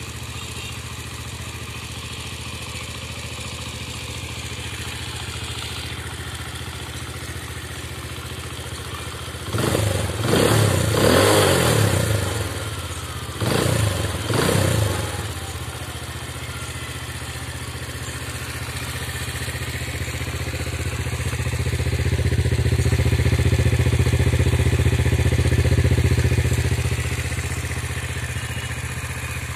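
Dayang Runner Bullet 100cc motorcycle engine idling steadily, revved in two short blips about ten and fourteen seconds in. Later its sound slowly swells and then fades again.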